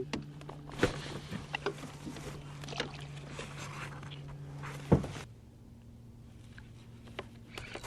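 Handling noise on a plastic kayak while dealing with a freshly caught fish: scattered knocks and rustling over a faint hiss, with sharper knocks about a second in and about five seconds in, then quieter.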